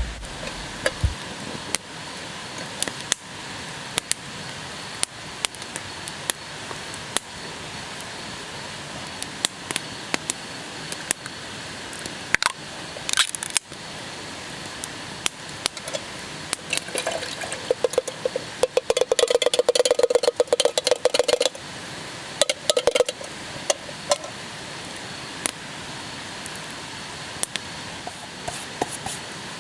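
Camp cooking with metal cookware: scattered sharp clicks and crackles over a steady hiss. About 18 seconds in comes a few seconds of rapid metallic scraping and clinking with a ringing tone, as a metal mess tin or pot is handled.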